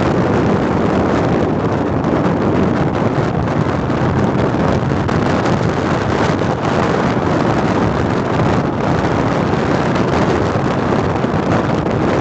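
Steady wind rushing over the microphone, mixed with the even, continuous rush of a ship under way.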